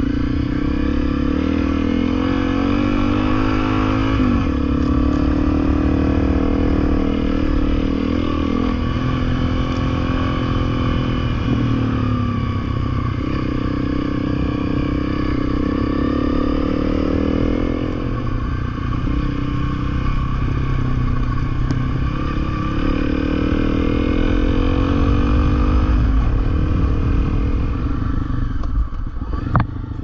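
Honda CRF250L's single-cylinder four-stroke engine running hard as the bike labours through deep soft sand, its revs rising and falling again and again. A sharp knock comes near the end.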